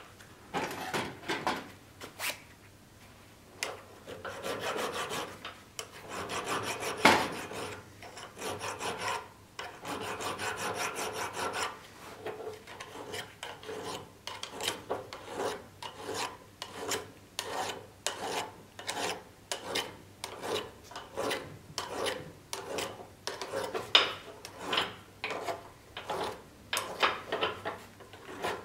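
Hand file working the metal hilt of a falcata sword clamped in a vise, in repeated scraping strokes: a few long, uneven strokes at first, then a steady rhythm of about one and a half strokes a second.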